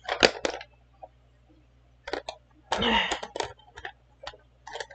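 Scattered light clicks and taps from makeup tools being handled, with the brush and eyeshadow compact knocked and set down, and a brief low murmur of voice near three seconds.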